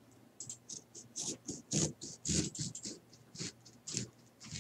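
Kitchen knife slicing into a green lime: a quick, irregular series of faint scratching strokes as the blade works through the peel and flesh.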